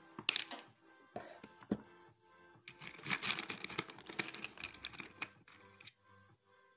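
Hands rummaging through small fishing tackle: a few sharp clicks in the first two seconds, then a spell of crinkling, clattering handling noise from about three to five seconds in, over faint background music.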